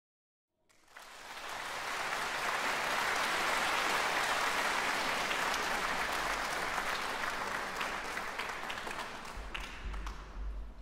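Audience applauding, starting about a second in, swelling quickly, holding steady and then thinning out near the end.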